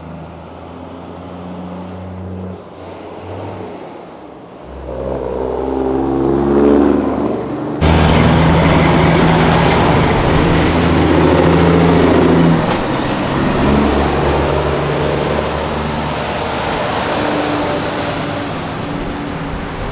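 Diesel semi-truck engines pulling away one after another, the engine note climbing as each truck accelerates. A louder, closer truck takes over abruptly about eight seconds in.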